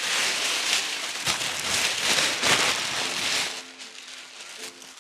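Water splashing and running as fresh vegetables are washed by hand. It dies down about three and a half seconds in, leaving faint background music.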